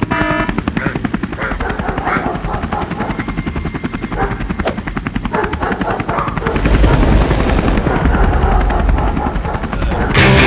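A fast, steady chopping pulse like helicopter rotors, growing louder and deeper about six and a half seconds in, with a single sharp click near the middle.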